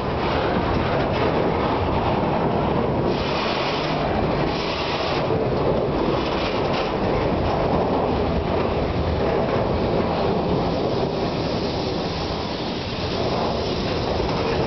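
Freight cars, autoracks and then flatcars, rolling past close by: a steady rumble and rattle of steel wheels on the rails. Twice, around three and five seconds in, a brief sharper hiss joins it.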